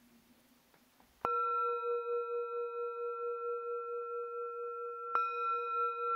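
Singing bowl struck twice, about a second in and again near the end, each strike ringing on in a steady, slowly wavering tone.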